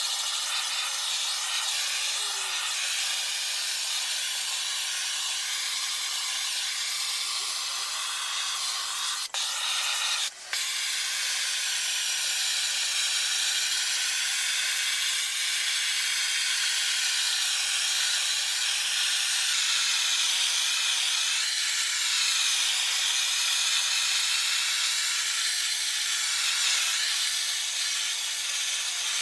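Handheld gas blowtorch burning with a steady hiss as its flame is played over pallet-wood slats to char them. The sound cuts out briefly twice, about nine and ten seconds in.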